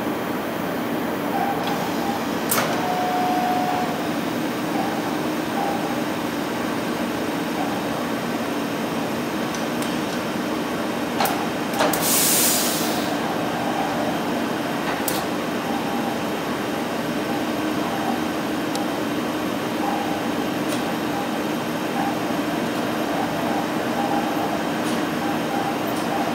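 Stäubli robotic assembly line running: a steady machinery hum from the robot arms and pallet conveyors, with a few sharp clicks and a short burst of hiss about twelve seconds in.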